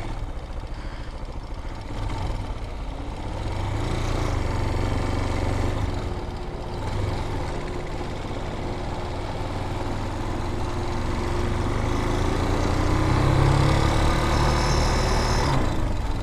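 Vitacci Bashan BSR Raven 250 dirt bike's air-cooled 250cc engine running steadily while riding, its note drifting a little up and down and growing somewhat louder towards the end.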